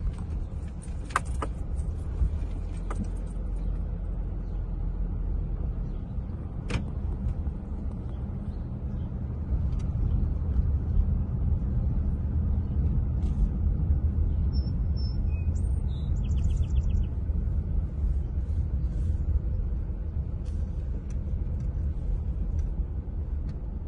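Car engine and road noise heard from inside the cabin while driving: a steady low rumble that gets a little louder about ten seconds in, with a few faint clicks and a brief faint chirping near the middle.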